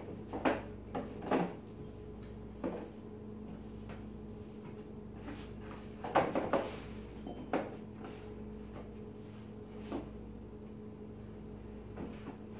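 Scattered knocks and clunks of household things being handled, in short clusters, the busiest just after six seconds in, over a steady low hum.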